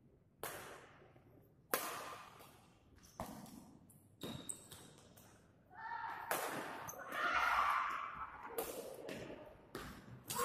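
Badminton rackets striking a shuttlecock during a fast doubles rally: a string of sharp hits one to two seconds apart, each echoing in the large hall, with players' voices calling out in the second half.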